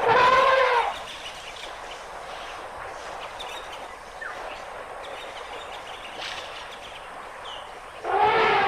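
Asian elephant trumpeting: a short, loud call rising and falling within the first second, and a second, longer trumpet starting near the end. Between the calls is quieter outdoor background with faint bird chirps.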